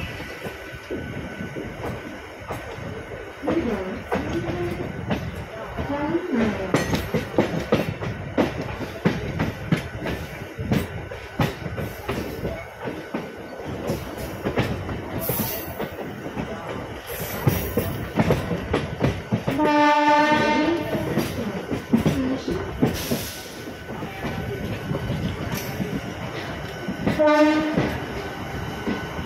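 MEMU electric multiple-unit train running, its wheels clicking over rail joints. The horn sounds twice: a long blast about two-thirds of the way through and a short one near the end.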